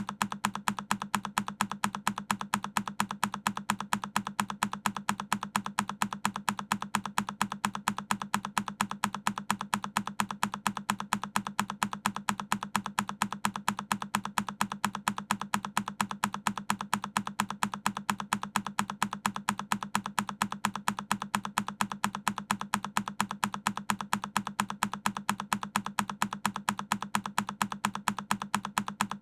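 A single key press on a Keychron K10 mechanical keyboard, looped so that the same key click repeats evenly several times a second.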